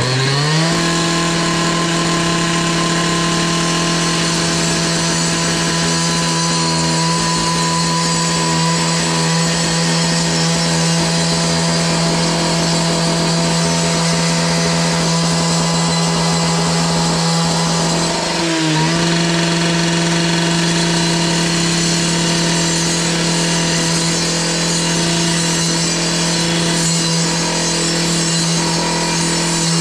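A power tool revs up to full speed as it starts and runs at a high, steady pitch, dipping briefly about two-thirds of the way through before picking up again.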